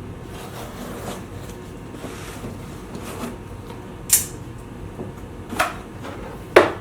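Vise parts and packaging being handled as they are taken out of the box: three short, sharp handling sounds about four, five and a half and six and a half seconds in, the last the loudest, over steady background noise.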